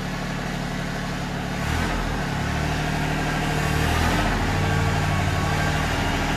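Compact tractor's engine running as the tractor reverses slowly; the engine note shifts about two seconds in and runs a little louder after that.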